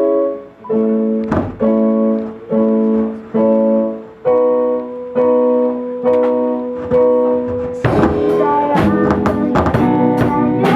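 A live band playing: a keyboard strikes sustained piano chords about once a second, then the drums and guitar come in about eight seconds in and the full band plays on.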